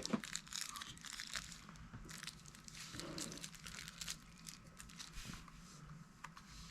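Plastic packaging crinkling and rustling quietly as it is handled and unwrapped, with scattered small crackles.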